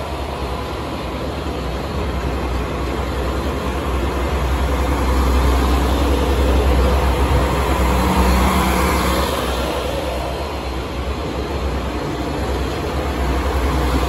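Electric multiple-unit train pulling out of the station, its cars rolling past close by at low speed with a steady rumble of wheels and motors. The rumble swells in the middle, eases a little and builds again near the end.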